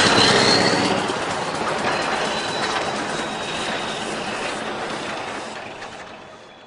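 Steady mechanical din of a Fliegl push-off trailer's hydraulic push wall shoving a load of alfalfa out of the rear, with a faint high whine over it; it tapers off and fades out near the end.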